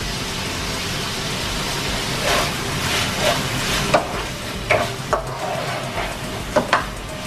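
Chicken pieces, sliced onion and green chillies sizzling in oil in a frying pan. From about two seconds in they are stirred and tossed with a wooden spoon, which scrapes and knocks sharply against the pan several times.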